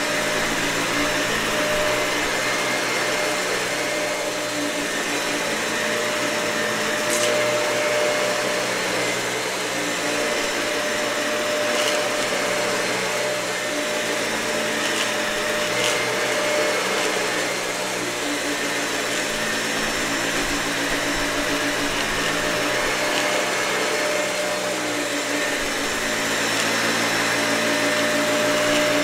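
Dyson vacuum cleaner running on carpet, its motor hum shifting slightly every few seconds as it is pushed back and forth, with a few brief clicks of debris being picked up.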